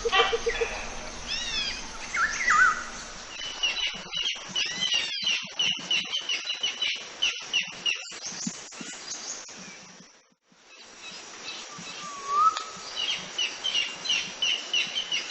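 Small birds chirping in rapid series of short, repeated high chirps, some sliding up and down in pitch, over an outdoor background hiss. The sound drops away briefly about ten seconds in, then the chirping resumes.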